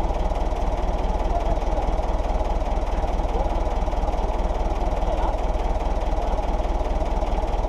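Andoria diesel engine mounted on a makeshift stand, running steadily with a fast, even beat.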